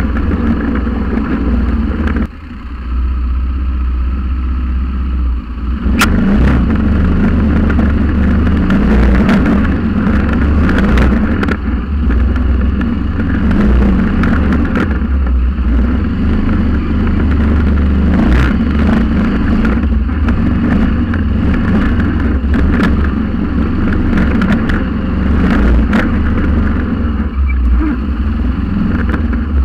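Quad bike (ATV) engine running as it drives over a rough forest track, with frequent knocks and rattles from the bumpy ride. The engine eases off for a few seconds near the start, then picks up again.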